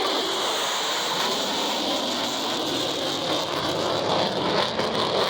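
Fighter jet engine noise during a display pass: a loud, steady hiss, with rough crackling about four seconds in.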